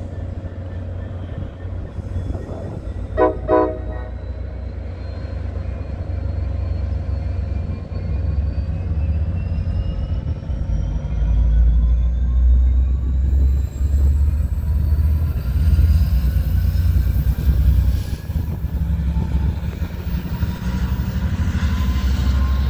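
Caltrans F59PHI diesel locomotive moving a bilevel passenger train off from the platform, its engine rumbling under load and growing louder about halfway through, with faint whines rising in pitch as the train gathers speed. Two short horn toots sound about three seconds in.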